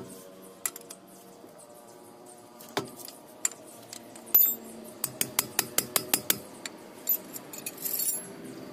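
Steel wrench clicking on a nut at the truck's steering knuckle: a few scattered sharp metallic clicks, then from about five seconds in a quick run of clicks, several a second, as the nut is worked tight.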